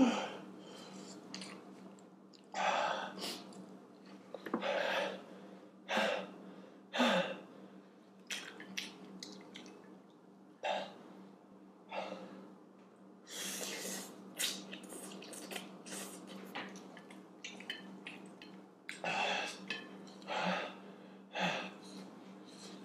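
Mouth sounds of a man eating extremely spicy Korean fire noodles: short heavy breaths against the chili burn, noodles slurped in about halfway through, and chewing.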